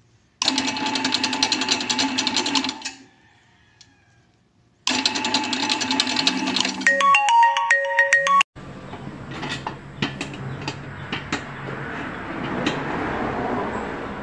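Commercial planetary dough mixer running with a fast, rattling motor-and-gear clatter, stopping for about two seconds and starting again. A short tune of electronic beeping notes sounds over it, and then a second stand mixer with a wire whisk runs with a steadier hum and scattered clicks.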